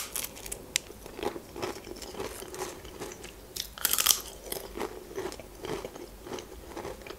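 Pringles paprika potato crisps crunching as they are bitten and chewed, close to the microphone, with a louder bite about four seconds in.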